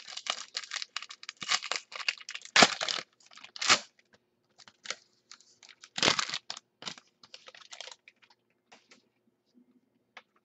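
Foil trading-card pack being torn open and its wrapper crinkled: dense crackling for the first three seconds and a second loud burst about six seconds in, then lighter clicks and rustles.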